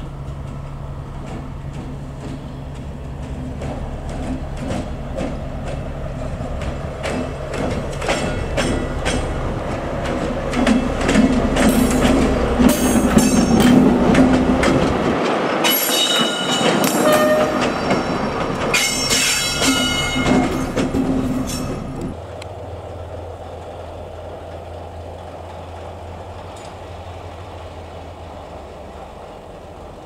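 D20E diesel-electric locomotive running past at close range: its engine drones and grows louder while the wheels click over the rail joints and squeal, loudest in the middle. At about two-thirds of the way through the sound drops suddenly to a quieter, steady low drone of another diesel locomotive.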